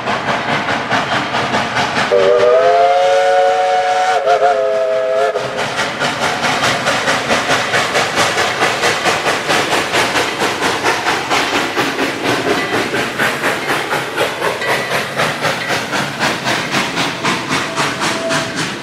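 Dollywood Express steam locomotive blowing its chime whistle, one chord of three notes held for about three seconds and wavering near its end. Then the engine chugs past in a quick steady exhaust beat of about three to four chuffs a second.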